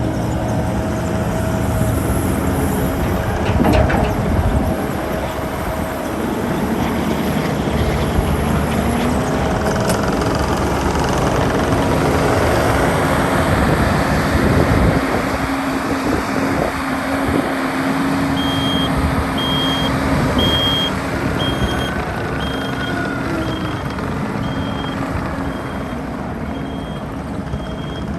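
Kubota SVL95-2S track skid steer's diesel engine running under work. From about two-thirds of the way through, its reverse alarm beeps about once a second.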